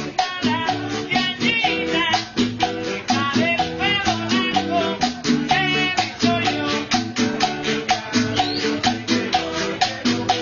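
Background Latin music, Cuban in style, with a quick steady beat of shakers and percussion under a bass line and a wavering melody.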